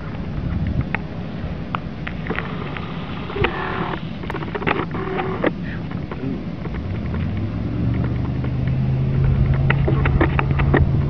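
An engine running with a low steady hum that comes in about seven seconds in and grows louder, over a rumble and scattered sharp clicks.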